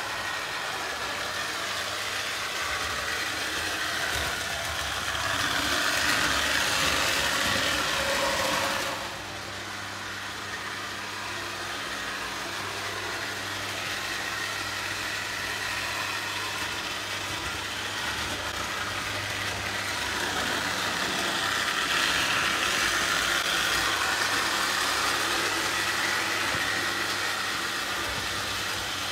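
Postwar Lionel O gauge electric trains running on three-rail track: a steady whir of motors and wheels on the rails over a low electric hum. It swells as a train passes close about five seconds in, drops suddenly at about nine seconds, and swells again after about twenty seconds.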